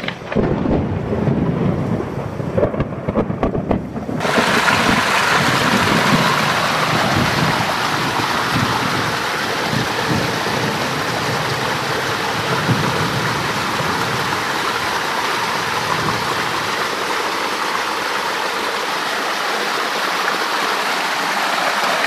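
Thunderstorm: thunder rumbling, then about four seconds in heavy rain sets in suddenly and keeps up a steady hiss, with rumbles of thunder underneath.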